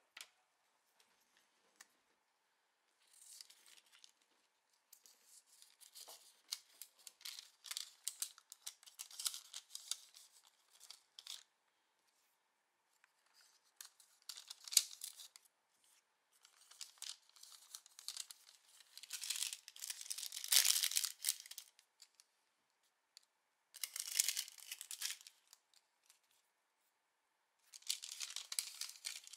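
Paper handled by hand: a small paper bag and prints rustling and crinkling in several separate bursts with short quiet gaps, the loudest about two-thirds of the way through.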